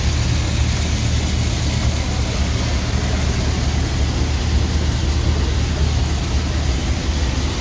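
Fishing boat's engine running steadily, a low, even rumble with a hiss of noise above it.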